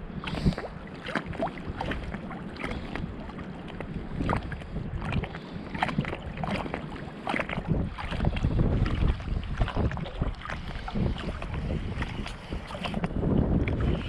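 Wind buffeting the microphone as a low rumble that swells and fades, with many irregular sharp taps and clicks throughout.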